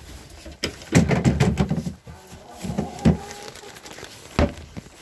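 Bumps, scuffs and rustling from a handheld phone being jostled against the dog's fur, with a cluster of thumps in the first two seconds and one sharp knock near the end.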